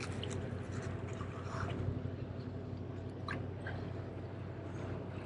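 Small waves washing steadily against jetty rocks, with a couple of faint clicks.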